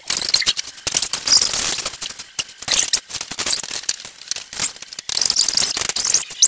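Computer keyboard keys clattering in a rapid, dense run of clicks, played back sped up, with brief pauses.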